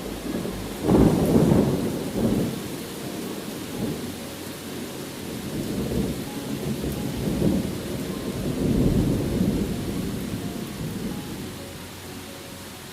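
Thunder rumbling over steady rain. A loud rumble starts about a second in, further rolls follow, and the rumbling dies away near the end.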